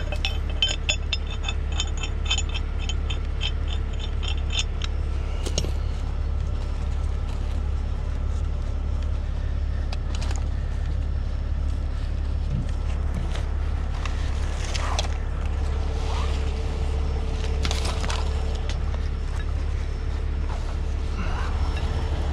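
A red steel shackle and recovery rigging handled by gloved hands: a quick run of small metallic clicks over the first few seconds, then scattered scrapes and knocks. Under it all, a steady low engine hum.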